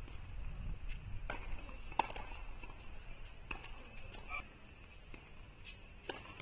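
Scattered light knocks on a hard tennis court, the sharpest about two seconds in: a tennis ball bouncing and shoes stepping between points.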